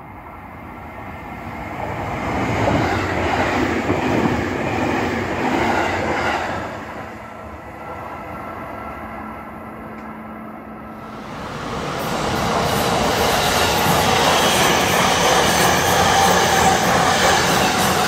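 A full-size E257-series electric express train running on the rails. The sound builds up over the first two seconds, eases off in the middle, then grows louder again with a brighter hiss from about twelve seconds in.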